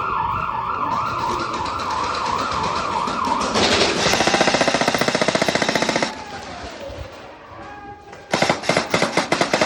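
A siren warbling quickly up and down, then airsoft guns firing full-auto: one long rapid burst of about two and a half seconds partway through, and another starting near the end.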